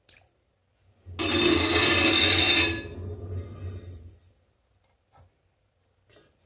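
A rough rasping scrape on a slip-coated potter's wheel head, as it is scraped clean, lasting about two seconds with a low hum beneath, then fading away. A short click before it and another near the end.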